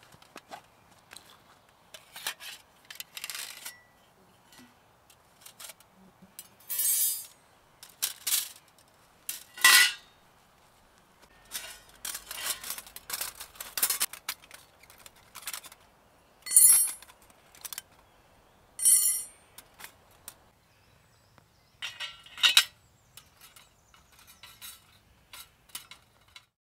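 Thin metal plates of a folding camp stove clinking and scraping against each other as the panels and grate are slotted together: a dozen or so separate short clinks and scrapes, some about half a second long, with quiet gaps between them.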